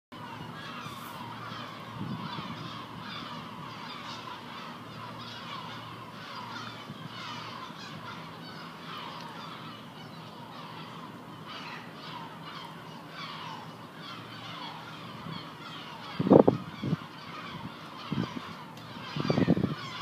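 Many gulls calling at once overhead, a steady chorus of short overlapping calls. Near the end come a few loud low bumps.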